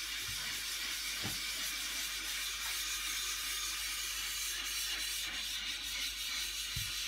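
Homemade abrasive block of valve-lapping powder set in epoxy, rubbed back and forth over silicon carbide grit slurry on a glass sheet to flatten its face: a steady gritty hiss. The slurry is beginning to make the block stick to the glass.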